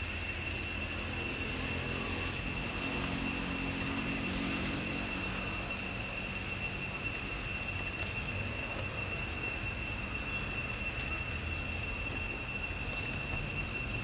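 Steady outdoor background: a low rumble, with a faint drone for a few seconds near the start, under a constant high-pitched whine.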